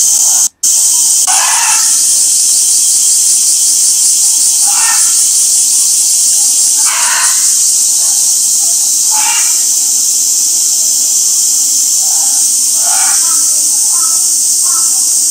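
A loud, steady chorus of cicadas buzzing in summer, high-pitched and unbroken except for a brief dropout just under a second in.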